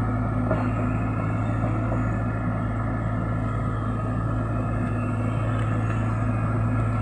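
Heavy diesel engines running steadily, a CAT excavator and a light dump truck close together, giving a constant low hum whose pitch does not change.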